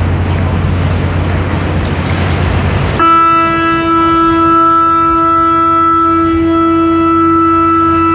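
A ship's horn sounds one long, steady blast that starts suddenly about three seconds in. Before it there is wind and choppy-water noise.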